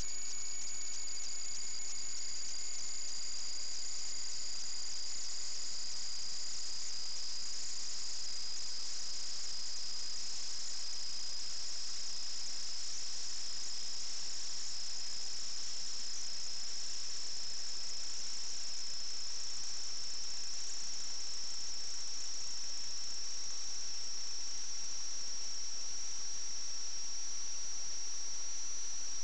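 Steady high-pitched electronic whine over hiss from the sewer inspection camera's recording equipment: two close high tones drifting slowly, the lower one rising a little.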